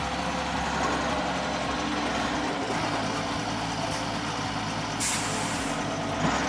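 Truck engine sound effect running steadily, with a short hiss like an air brake about five seconds in.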